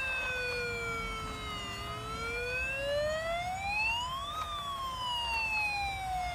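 Toy bubble-blowing fire truck's electronic siren wailing: one slow tone that falls, rises to a peak about four seconds in, then falls again.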